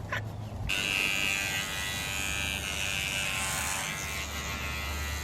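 Electric hair clippers switching on less than a second in, then buzzing steadily.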